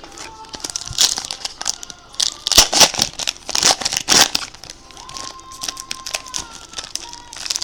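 Trading-card pack wrapping being torn open and crinkled by hand: a quick run of crackling rustles, loudest between about two and four seconds in.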